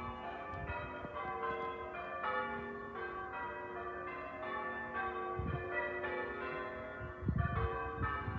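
Church bells ringing, many bells struck one after another in quick succession so their tones overlap and hang. A few low rumbles come through about halfway and again near the end.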